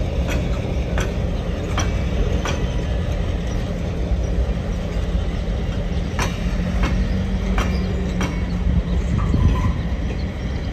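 Passenger train running on the rails: a steady low rumble with sharp clicks and rattles at uneven intervals, and a low hum that swells for a few seconds past the middle.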